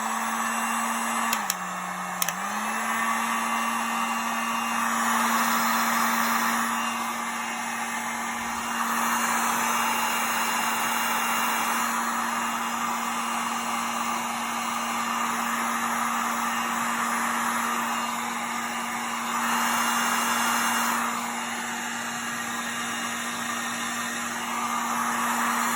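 Electric heat gun running steadily, shrinking heat shrink tubing onto a charging cable: a motor hum under rushing air that swells and eases several times. About a second and a half in, a click and the hum drops lower, then a second click brings it back up.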